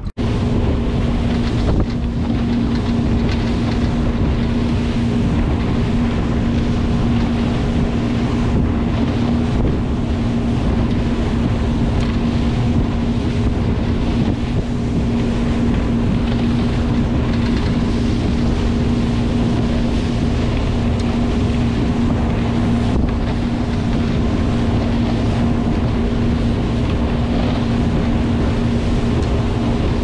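Evinrude 90 HO outboard motor running steadily with the boat under way, its steady engine hum over the rush of wind on the microphone and water along the hull.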